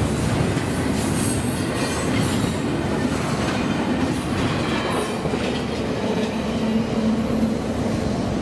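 Double-stack intermodal freight train rolling past: steel wheels clattering over the rails with some wheel squeal. The high clatter thins out as the last cars clear the crossing, about two-thirds of the way through.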